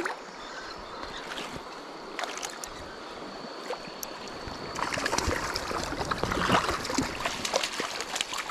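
Stream water running steadily. From about five seconds in, louder irregular splashing and crackling sets in.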